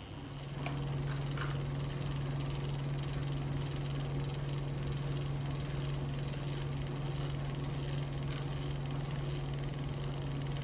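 SilverCrest SZM 500 B2 cotton candy machine running: its motor spins the head with a steady low hum that comes up within the first second, with a few faint clicks as it starts.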